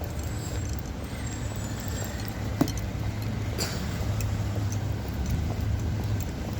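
Road vehicle noise: a steady low rumble, with a couple of faint clicks in the middle.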